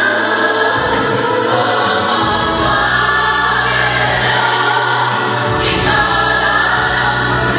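Gospel vocal group of men and women singing in harmony, with a low bass part holding long notes that shift a few times.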